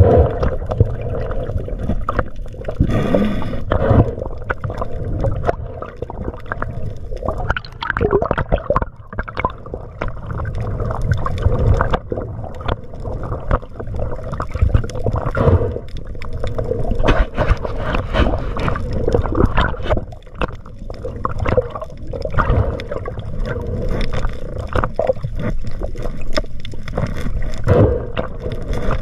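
Underwater water noise from a camera on a swimming spearfisher: a steady low rush and sloshing of water, crowded with many small clicks and crackles. A brief high squeal sounds about three seconds in.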